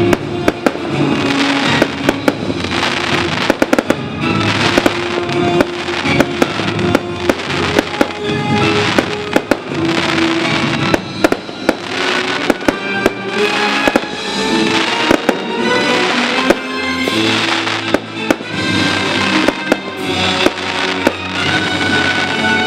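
Fireworks display going off, with many irregular sharp bangs and crackles from bursting shells. Background music plays underneath.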